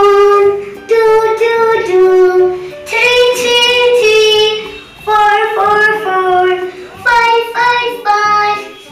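A child singing a tune in short phrases of held notes, over soft backing music.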